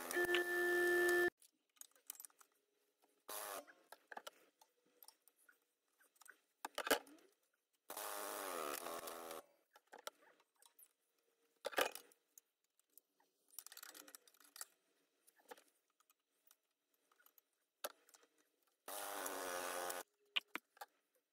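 Hydraulic shop press crushing the green metal housing of an old sewing machine: several short bursts of steady buzzing from the press, with sharp cracks and clinks of metal between them, the loudest crack about seven seconds in.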